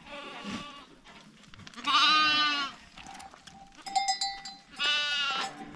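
Sheep and lambs bleating: a faint bleat at the start, a loud wavering bleat about two seconds in and another near the end. A steady ringing tone runs through the second half.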